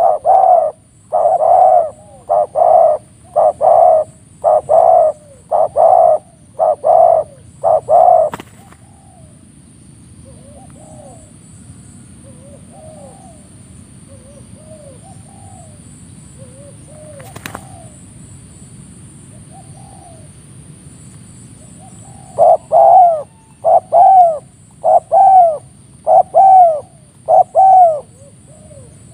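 Spotted doves cooing. A loud run of short, quick coos, about one every two-thirds of a second, stops about eight seconds in. Softer, more widely spaced coos follow, and a second loud run of coos starts a few seconds before the end.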